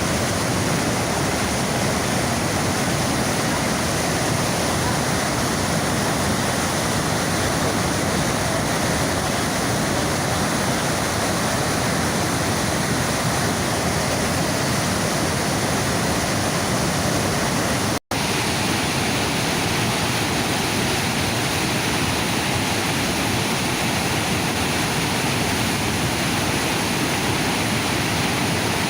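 The Niagara River's fast water rushing just above the brink of Niagara Falls: a steady, even rush of water. It cuts out for an instant about eighteen seconds in, then carries on slightly duller.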